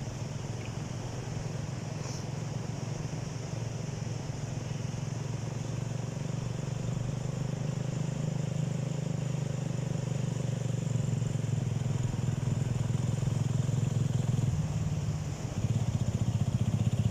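ATV engine running steadily, slowly getting louder, then rising sharply about fifteen seconds in.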